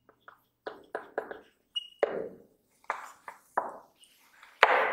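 Dry-erase marker squeaking and scratching on a whiteboard while writing: about a dozen short, uneven strokes, some with a brief thin squeak, the loudest near the end.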